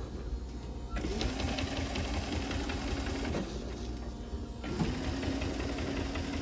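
SEWPRO 1508L-18 long-arm industrial sewing machine on a servo motor stitching automotive seat panels, with a steady running hum. It starts about a second in, stops briefly about two-thirds of the way through, then sews on.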